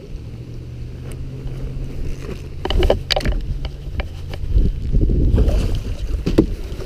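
Knocks and scrapes on a boat, with water splashing, as a flathead catfish is netted and brought aboard in the rain. A low steady hum runs under the first half.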